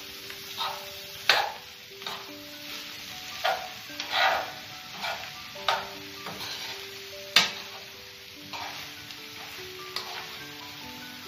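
Diced vegetables and minced meat sizzling in a frying pan while being stirred, with irregular scraping strokes against the pan and two sharp knocks of the utensil on the pan, about a second in and near the middle.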